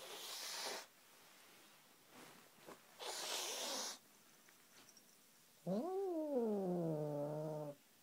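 Siamese kitten hissing twice in short sharp bursts, then giving a drawn-out growl near the end that rises, drops and settles into a low steady pitch. It is a possessive warning over a toy he won't give up.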